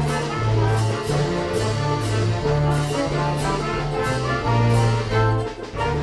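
Youth orchestra playing a lively tune, with trumpet, French horn and trombone over violins, double bass, a strummed small guitar and cymbals. Each part was recorded separately at home and mixed together. A strong bass line moves under the brass melody, with a beat about twice a second and a brief drop near the end.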